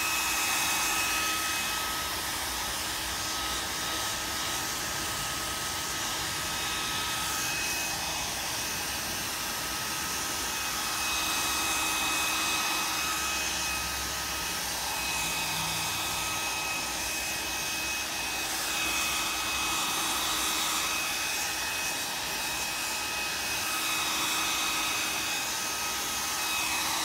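Handheld hair dryer blowing steadily, a rush of air with a thin whine on top, swelling and fading slightly as it is moved over adhesive tint film to heat it. It cuts off at the very end.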